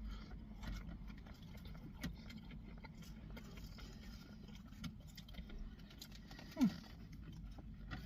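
Quiet eating and handling noises as a bite of fried chicken tender is taken: faint clicks and rustles over a low background hum. About two-thirds of the way through there is one short sound that glides down in pitch.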